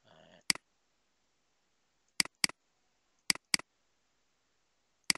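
Computer mouse clicking in quick pairs, four double-clicks about a second or so apart, the last near the end, as folders are opened one after another.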